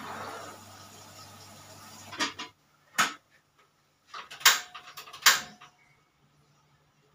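Kitchenware clattering: several sharp knocks and clinks of dishes and utensils, the loudest about four and a half and five seconds in. A steady hum under it cuts off about two and a half seconds in.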